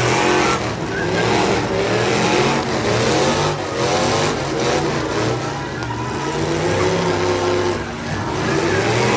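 V8 engines of several demolition derby cars revving up and down over and over at once, their pitch repeatedly rising and falling, with a few sharp knocks among them.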